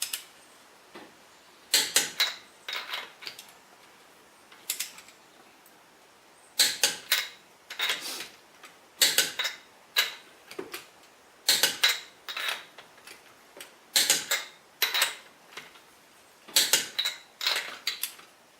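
Torque wrench ratcheting lug nuts down to 90 foot-pounds: short groups of quick metallic clicks, one group every second or two, with quiet pauses between.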